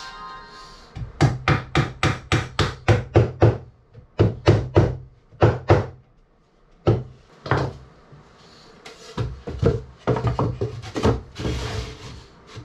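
Hammering on wood: a quick run of about a dozen sharp strikes, a few scattered blows, then another run near the end.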